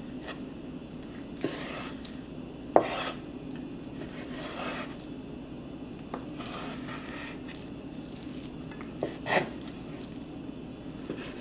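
Cleaver slicing raw skirt steak on a wooden cutting board: a slow series of slicing strokes, each a short scrape of the blade through the meat, with one sharp knock of the blade on the board a little under three seconds in.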